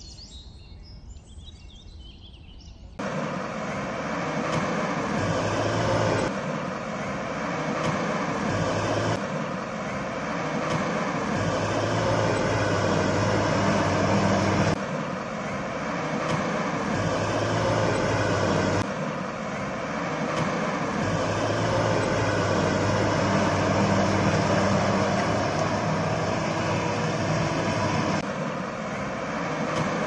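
Steady engine rumble of a heavy vehicle, a dubbed sound effect that starts suddenly about three seconds in after quieter outdoor ambience and runs in joined stretches of a few seconds each.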